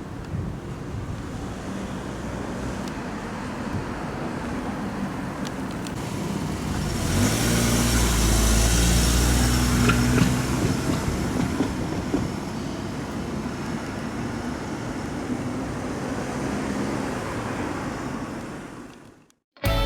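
A vehicle passes close by over steady background traffic noise, growing louder to a peak about eight to ten seconds in and then fading away; the sound fades out just before the end.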